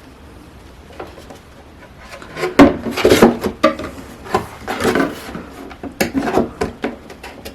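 Hands handling hard plastic camcorder accessories and packaging: a quiet start, then from about two and a half seconds in a busy run of knocks, clicks and rubbing.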